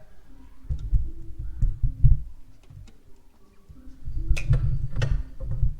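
Sharp clicks of a GFCI outlet's reset button being pressed, among low rumbling handling bumps near the microphone; the two loudest clicks come close together past the middle.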